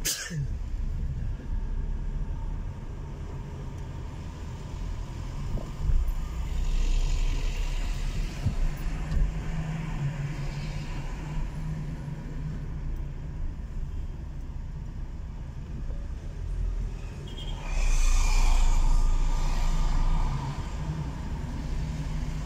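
Car driving in city traffic: a steady low rumble of engine and road noise, with louder rushes of passing traffic, the loudest lasting about two seconds near the end.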